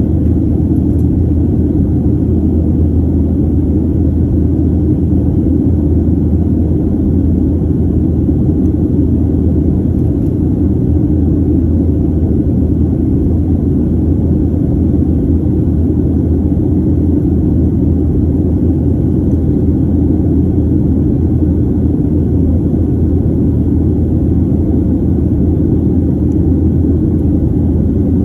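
Cabin noise inside a Boeing 737 airliner in flight: the steady low rumble of the jet engines and the air rushing past the fuselage, unchanging throughout.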